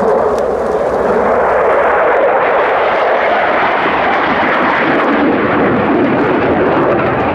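JAS 39 Gripen fighter jet's engine noise during a display pass: a loud, steady rushing roar whose hiss dulls slightly a few seconds in.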